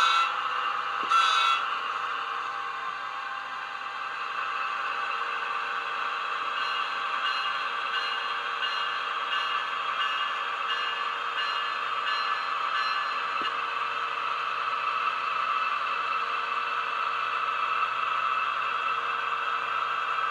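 Sound decoder in an Atlas N scale New Jersey Transit ALP-45DP dual-mode locomotive model playing its electric-mode running sounds through its small speaker as the train rolls along the track: a steady hum with several held whining tones. A brief loud blast sounds about a second in.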